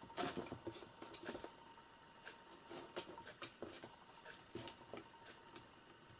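Faint, irregular clicks and scuffles of a kitten playing on a plastic power strip, pawing and biting at the plugs and cables. The taps come thickest in the first second and a half, then turn into scattered single ticks.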